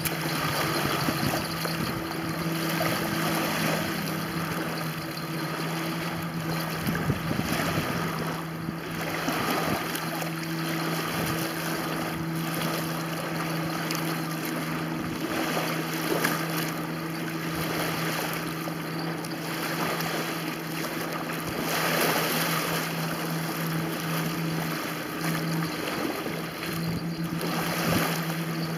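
Small waves lapping on the lakeshore with wind on the microphone, swelling every couple of seconds, over a steady low hum.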